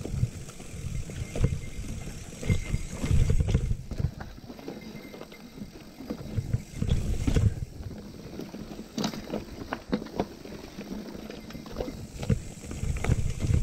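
Giant Anthem mountain bike being ridden over rough trail: irregular rattles and knocks from the bike over the bumps, with uneven low rumbling from wind buffeting the chest-mounted camera's microphone.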